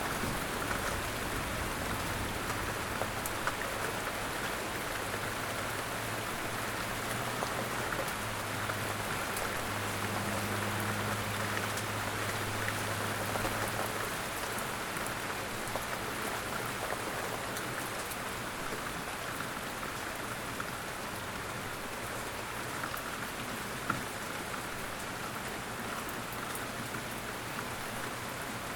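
Steady outdoor rain, with scattered individual drops clicking on a surface. A low hum sits under the rain and fades out about halfway through.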